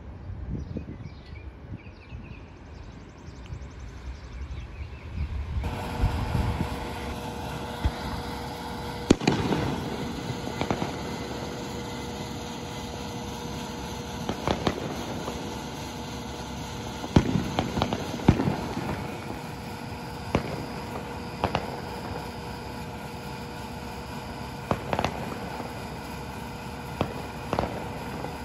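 Low rumble of a self-propelled track maintenance machine on the rails. Then, at a railroad crossing with its gates down, a steady ringing tone runs under about ten sharp bangs and clanks, spaced irregularly a few seconds apart.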